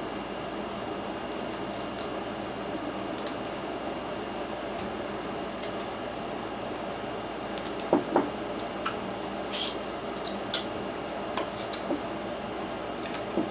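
Close-up eating of crabs: scattered small cracks and clicks of shell being broken and picked, with wet chewing and lip-smacking. Two sharper cracks come about eight seconds in, over a steady low room hum.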